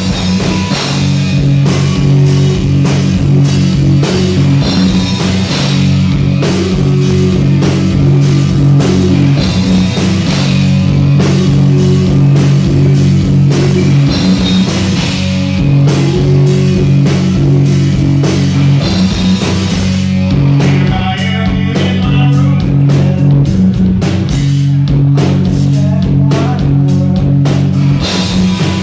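Live rock band playing loud and without a break: electric guitars, bass guitar and a drum kit, with a lead singer's voice over them.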